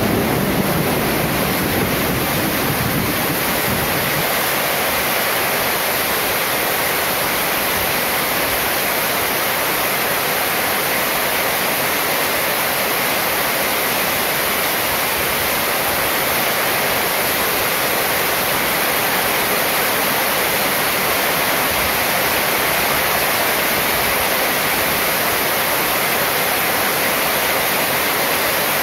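Heavy rain pouring onto a sheet-metal roof and streaming off its edge: a steady, dense hiss. A deeper rumble fades away over the first few seconds.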